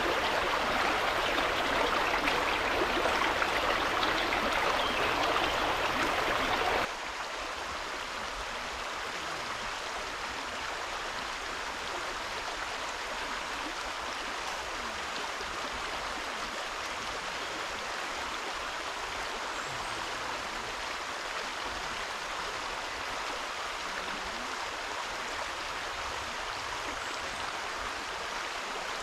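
Steady rush of water, louder for about the first seven seconds, then cutting abruptly to a quieter, even rush.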